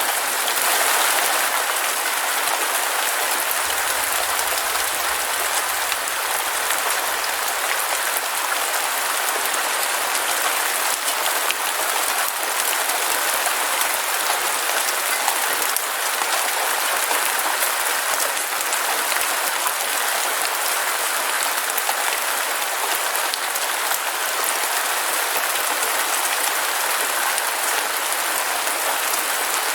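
Heavy rain falling, a steady dense patter of drops.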